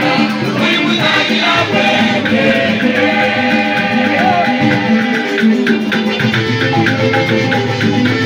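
Choir singing a lively hymn with instrumental backing and a shaker rattling a steady quick beat.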